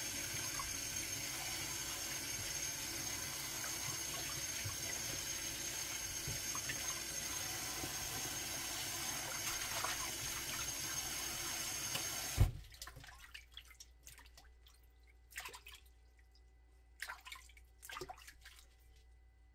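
Kitchen faucet spray running steadily into a pot of water as green onions are rinsed by hand. About twelve seconds in it stops with a sharp click, and only a few short splashes follow as the onions are moved in the water.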